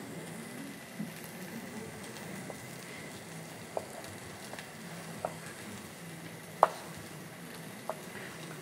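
Hot oil sizzling steadily in a frying pan. A knife taps sharply on a cutting board about five times as zucchini is cut, loudest about two-thirds of the way through.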